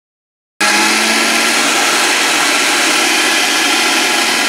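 Oster countertop blender motor running steadily, grinding Oreo cookies on its shred setting; it starts abruptly about half a second in and keeps a constant hum.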